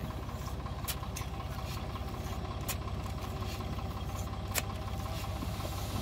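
Sonalika DI 750 tractor's diesel engine running steadily at idle while its hydraulic tipping trailer is raised to dump a load of sand, with a few sharp clicks.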